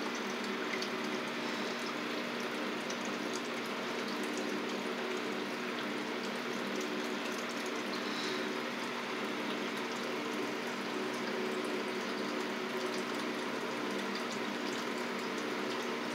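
Steady hum of a small water pump running, with water trickling.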